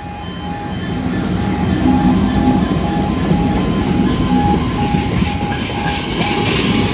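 A diesel freight train with oil tank wagons rolling slowly over a level crossing: a rumble and wheel clatter that grows louder about a second in. Through it a level crossing warning alarm sounds in even pulses about twice a second.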